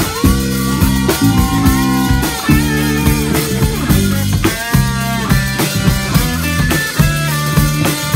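Live rock band playing an instrumental passage with no singing: electric guitar lines over bass and a drum kit.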